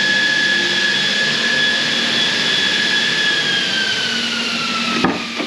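A small motor's high whine over a hiss, steady for about three seconds and then slowly falling in pitch as it winds down, with a sharp click near the end.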